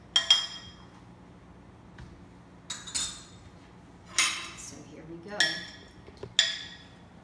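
Metal spoon clinking against a glass bowl of melted garlic butter sauce: a string of sharp, ringing clinks, roughly one a second.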